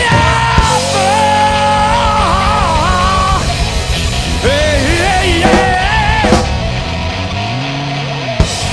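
Blues-rock band playing live: electric guitar, bass and drums, with held melodic lines that bend up and down. Near the end the sound thins and gives way to sharp drum hits.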